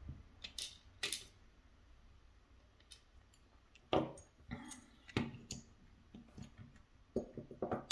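Small metal lock parts and tools being handled, giving scattered light clicks and taps, with a quick run of taps near the end.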